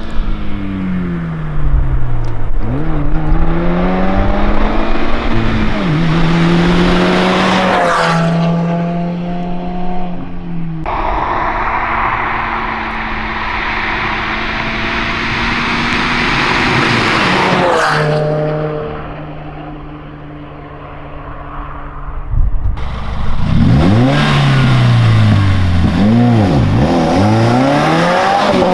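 A 2015 Subaru WRX's turbocharged flat-four breathing through a muffler-delete exhaust, revving up and down in repeated pulls and passes, with stretches of steady engine note in between. The sound changes abruptly twice, like edits between runs.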